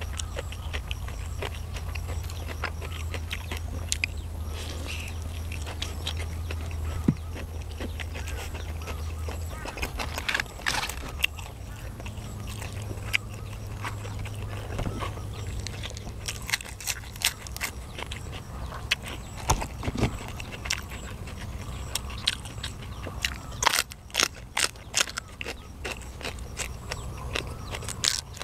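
Close-up mouth sounds of someone eating grilled chicken and raw vegetables: chewing, smacking and crunching in many short sharp clicks, thickest in the second half. A steady low hum runs underneath.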